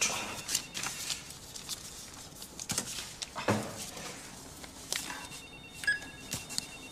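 Office copier or printer being handled by hand: scattered clicks and knocks from its lid and paper, with a short electronic beep near the end.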